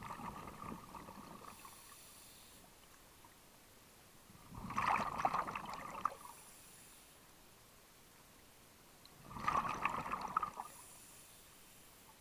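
Scuba diver breathing through a regulator underwater: three exhalations of bubbling, about four and a half seconds apart, each with a faint hiss of inhalation after it.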